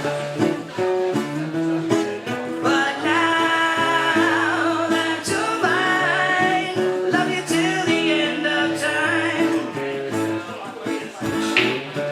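Acoustic guitar strummed with a sung vocal over it; the singing comes in about three seconds in and runs to about nine seconds, the guitar chords carrying on underneath.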